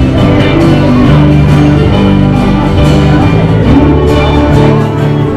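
Instrumental music playing steadily at full volume, with long held notes.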